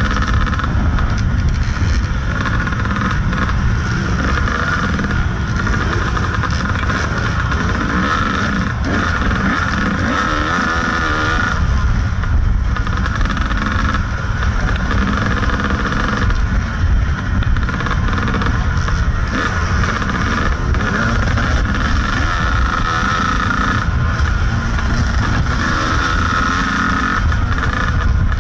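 Kawasaki KDX 220 two-stroke single-cylinder dirt bike engine running continuously, its revs rising and falling with the throttle while riding a rough trail, heard close from a camera on the bike, with heavy low rumble from wind and the ride.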